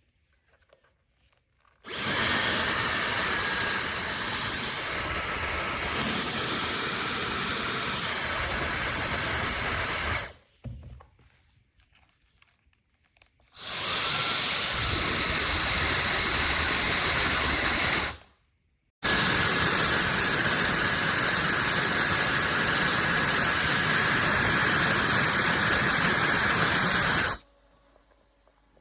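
Compact ionic hair dryer with a high-speed motor, blowing in three runs of steady airflow rush with a faint whine, each switched on and off abruptly with short silences between; the last two runs are louder than the first.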